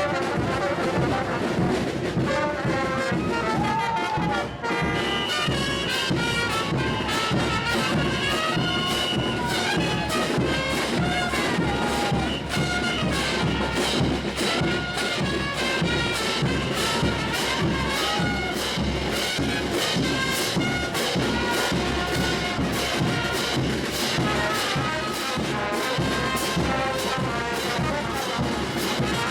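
Brass band playing traditional Bolivian parade music, trumpets and trombones over a steady drum beat of about two beats a second.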